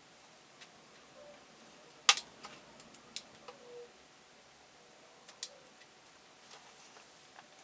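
Handling of a smartphone: a few scattered light clicks and taps, the sharpest about two seconds in, with a couple of faint squeaks over a low hiss.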